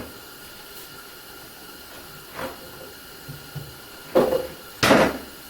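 Woodworking clamps being taken off a glued-up board panel: a light knock about halfway through, then two loud, short clunks of clamp against wood near the end.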